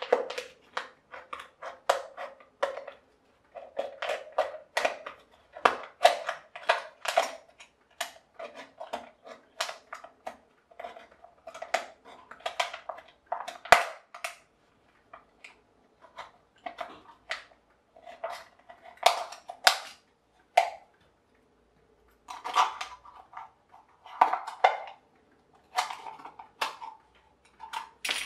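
Thin aluminium drinks can being cut apart with a craft knife: a long run of irregular clicks, crackles and crinkles of the can's metal, with one sharp tap about halfway through. Towards the end, scissors snip through the thin can sheet in short bursts.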